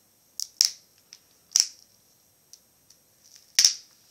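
A few sharp, short clicks from hand work on a laptop's screen assembly: two close together about half a second in, another about a second later, and the loudest near the end.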